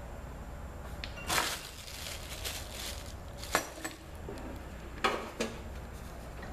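Clatter and clinks of metal drill press parts being handled: a short scraping rustle about a second in, a sharp click near the middle, and two more clicks near the end.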